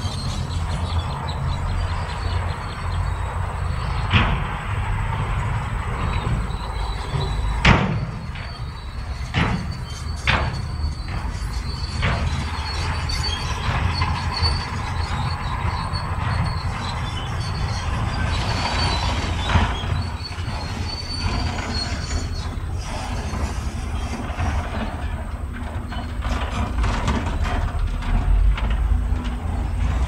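Crawler bulldozer at work: its diesel engine running steadily under a high squealing and clanking of its steel tracks, with several sharp knocks along the way.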